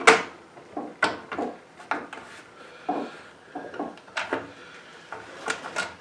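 Irregular knocks, clicks and rattles of a push mower's engine cover being pulled and worked by hand while a hidden fastener still holds it, the sharpest knock right at the start.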